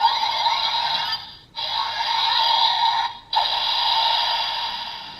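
Electronic sound effects and music played by the DX Dark Seiza Blaster toy, in three stretches broken by short gaps, the last fading out near the end.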